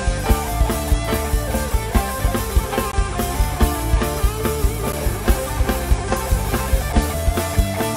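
Rock band playing, a drum kit keeping a steady beat under guitar and other sustained instruments.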